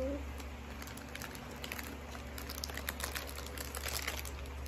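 Clear cellophane gift wrap crinkling as it is handled and pulled open, a scatter of small crackles that grows busier after about a second and a half.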